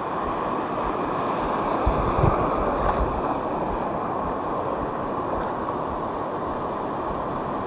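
Steady wind buffeting the microphone over the wash of surf breaking on a shallow reef, with a few low knocks about two seconds in.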